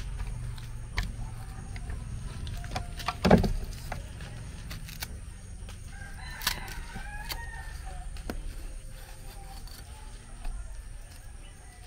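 A rooster crows once about halfway through, a gliding call lasting a second or so. Around it come knife cuts and knocks as ripe plantain is sliced into a plastic blender jar, the loudest knock about three seconds in.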